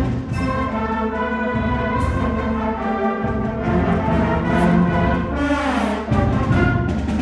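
A school concert band playing, brass and woodwinds sounding full sustained chords over a low bass line, the harmony changing every second or two.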